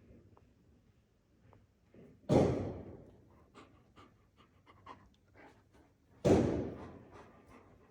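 Two firecracker bangs from outside, about four seconds apart, each trailing off in a rumble, with scattered sharp cracks between them. A frightened dog pants.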